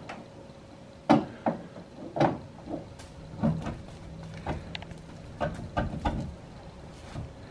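A series of irregular clunks and knocks, about ten in all, the loudest about a second in, with a faint steady hum under them in the middle.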